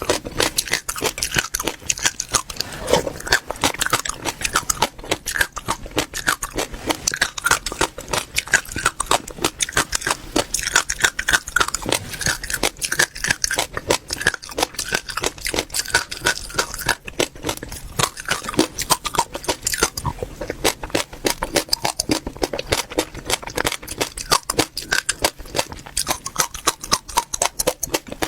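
Close-miked chewing of crunchy seeds: a rapid, unbroken crackle of small crunches as they are crushed between the teeth.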